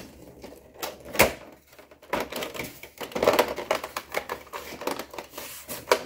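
Back cover of a Lenovo ThinkCentre M820z all-in-one computer being pressed onto the case, its tabs snapping into their slots: a string of sharp clicks and knocks. The loudest comes about a second in, with a dense run of clicks between about two and four seconds in.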